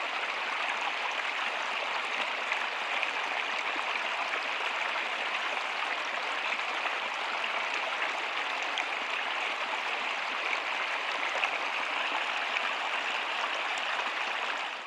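Steady rain, an even hiss with fine scattered drop ticks, fading out at the very end.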